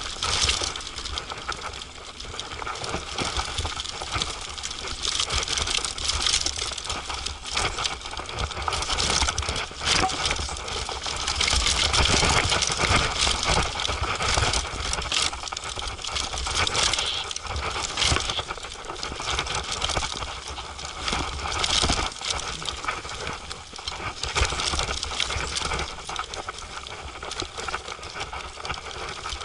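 Mountain bike rattling and clattering as it rides fast down a rough dirt and rock trail: tyres crunching on the ground, chain and frame knocking over bumps, with a continuous low rumble underneath. It gets louder and busier in the rougher stretches.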